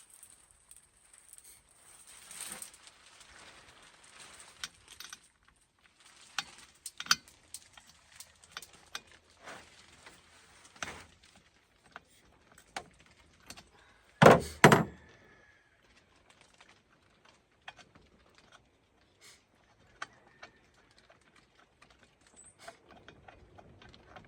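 Scattered clicks, clinks and knocks of hand tools and chainsaw parts being handled during servicing, with one loud double knock about 14 seconds in.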